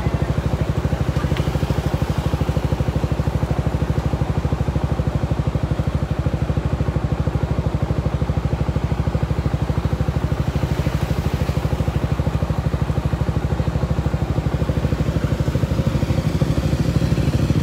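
Vehicle engine running steadily close by, with a rapid, even pulse.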